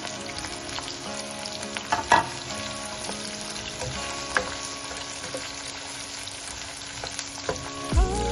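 Food sizzling as it fries in a hot pan, with a few clinks and scrapes of a utensil being stirred through it; the loudest clink comes about two seconds in.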